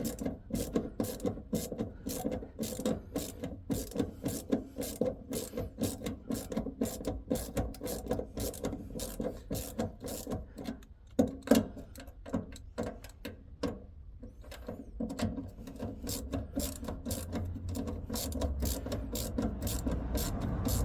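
Socket ratchet clicking steadily, about three to four clicks a second with a short pause about two thirds through, as it tightens the little bolts that hold the fuel pump unit into the tank. The bolts are being brought up gradually, not yet fully tight, because they tend to snap.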